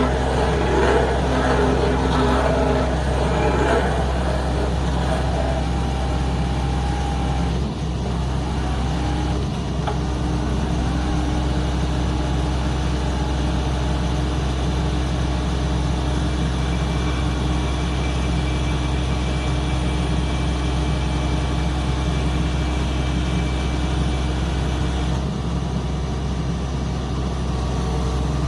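Excavator engine running steadily with a constant low hum, with a few short dips in level but no clear stops.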